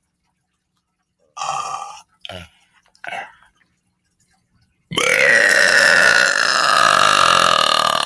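A person burping deliberately: three short burps, then about five seconds in a long, loud burp whose pitch slowly falls.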